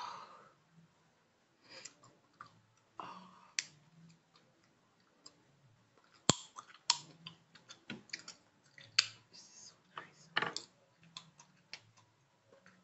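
Close-miked sharp clicks and taps in an irregular run, sparse at first and coming thick and fast from about halfway.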